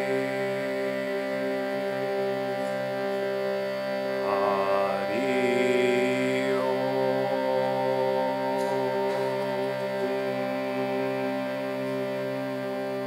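Hand-pumped Indian harmonium holding a sustained drone chord, its reeds sounding steadily throughout. A wavering higher melody note rises over the chord about four seconds in and fades out by about seven seconds.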